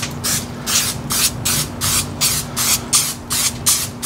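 Aerosol can of vegetable oil cooking spray hissing in short, quick bursts, about three a second, as oil is sprayed onto the inside of an offset smoker's steel door to season it.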